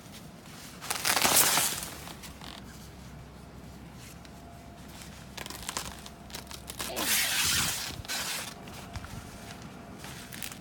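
Deep fresh snow crunching as it is pressed down and broken. There is a loud burst about a second in and a longer stretch of crunching near the seven-second mark.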